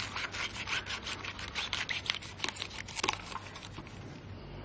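A knife cutting down through the tough leaves of a globe artichoke: a quick run of crisp cutting strokes, several a second, that stops about three and a half seconds in.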